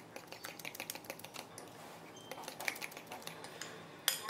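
Metal spoon stirring thick batter in a glass bowl: quick, irregular clicks and scrapes of the spoon against the glass, with one sharper knock near the end.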